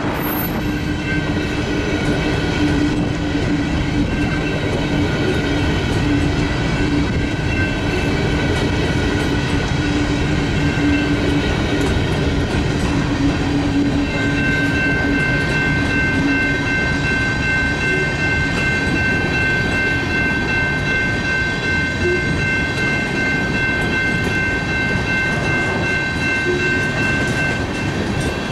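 Freight cars of a ballast train rolling past close by: steady wheel-on-rail noise as covered hoppers, empty intermodal cars and ballast hoppers go by, with a steady high-pitched ring from about halfway.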